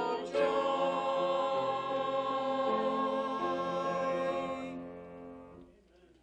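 Small mixed church choir singing the long held closing chord of a Christmas cantata's last song, which dies away about five seconds in.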